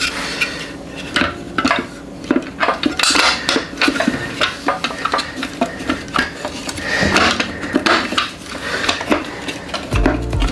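Irregular metallic clinking and clattering, many short sharp clicks, as metal tools or parts are handled.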